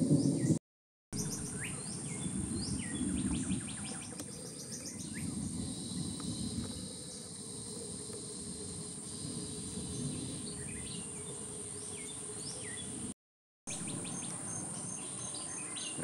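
Wild birds giving short chirps and calls over a steady high insect drone. The sound cuts out to silence twice, briefly.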